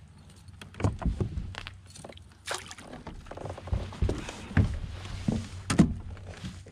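Irregular knocks and clunks of gear being handled aboard a fishing kayak as a landing net is swung about, with a stretch of hiss around the middle.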